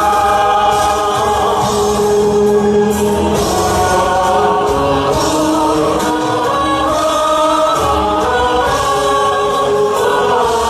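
A group of voices singing a song together over instrumental accompaniment, with long held notes.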